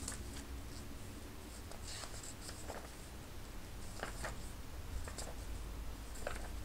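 Paper pages of a thick art book being turned one after another, about six short papery swishes a second or so apart, with hands sliding over the paper.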